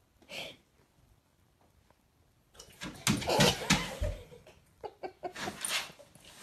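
A cat and a large dog squaring off: short, harsh animal noises, with a loud stretch about halfway through that ends in a low thud, and another burst near the end.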